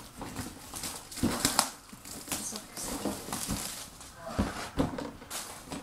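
A boxed magic kit being handled and opened: irregular knocks and scraping, rustling packaging noise.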